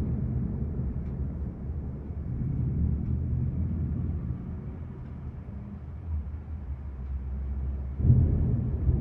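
Low thunder rumbling, slowly fading away, then a fresh roll of thunder swelling up near the end.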